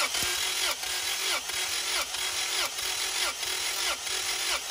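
Starter motor cranking a Honda H22 2.2-litre DOHC VTEC four-cylinder for a compression test on cylinder one. The steady whir has an even pulse about every two-thirds of a second.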